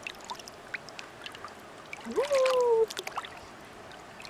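Shallow water lapping at the shore, with small splashes and drips. About two seconds in, a single drawn-out voice-like 'aah' that rises, then slowly falls, is the loudest sound.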